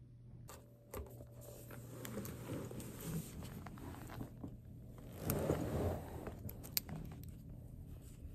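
Handling noise: rustles and light knocks as a black plastic takeout container of fried rice is moved about and held, with a louder rustle about five seconds in, over a faint steady hum.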